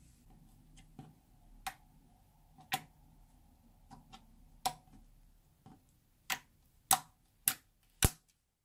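Clear slime being pressed and poked, giving sharp clicking pops: scattered and soft at first, then four louder pops about half a second apart near the end.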